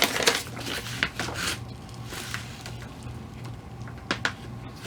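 Wrapped cardboard box being handled and unwrapped: short bursts of rustling and crinkling, with a couple of sharp taps about four seconds in.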